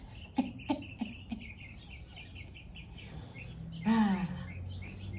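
A small bird chirping over and over, a few short high notes a second. A woman laughs in short bursts early on and lets out a longer falling vocal sound about four seconds in.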